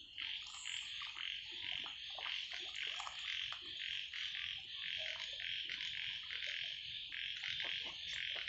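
A steady chorus of frogs calling, a dense pulsing trill. Under it come the soft splashes and bill-sifting of domestic ducks dabbling in shallow muddy water.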